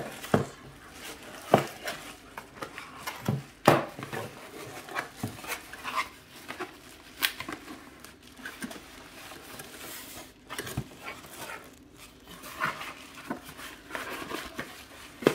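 Cardboard box and plastic packaging being handled: irregular rustling, scraping and light tapping, with a few sharper knocks as items are lifted out and set down.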